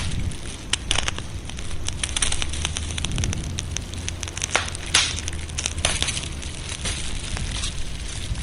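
Fireplace fire crackling, with frequent irregular sharp pops over a steady low rumble.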